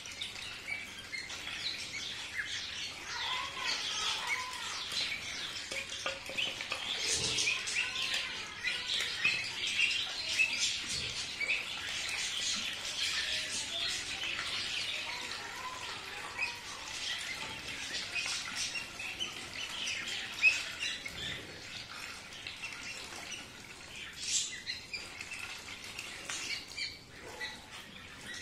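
A flock of young Khaki Campbell ducks peeping and chattering at once, many short high calls overlapping without a break while they feed.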